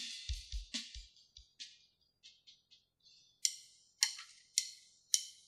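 The last few kick-drum and cymbal hits of a rock band's song ring out and fade. After a short pause come four sharp, evenly spaced clicks about half a second apart: a count-in for the next song.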